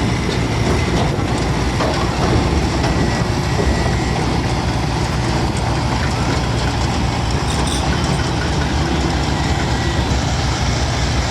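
Diesel engine of a heavy JCB machine running steadily, with a low hum and a clattering rumble.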